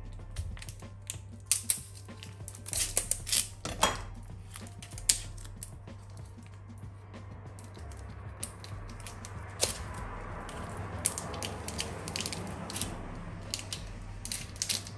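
Plastic wrapping on a bar of laundry soap crinkling and clicking as it is handled, in scattered light crackles that come thicker over a soft rustle in the second half.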